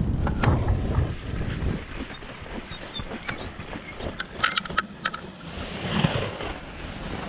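Wind rushing over the microphone during a paraglider's low landing approach, fading after a second or two. A few sharp clicks follow about four and a half seconds in, then a rustle near six seconds, as the pilot lands among the harness and riser gear.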